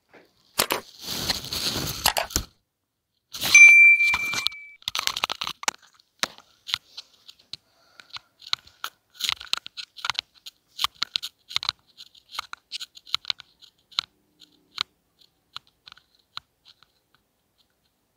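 End-screen subscribe-animation sound effects: a whoosh lasting about two seconds, then a click with a bell-like ding that rings for about a second, followed by a long run of small scattered clicks that thin out and stop near the end.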